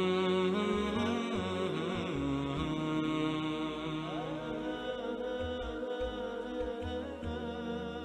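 Vocal chanting as background music: a voice holding long, melodic notes with slow glides, over a low droning hum.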